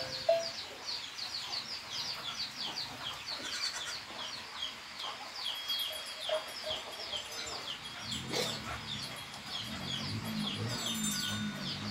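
Many chicks peeping rapidly and without a break: short high downward chirps, several a second, overlapping. In the last few seconds lower clucking joins in, and a brief knock comes about eight seconds in.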